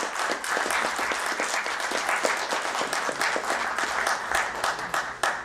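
Audience applauding: many hands clapping in a dense, even patter.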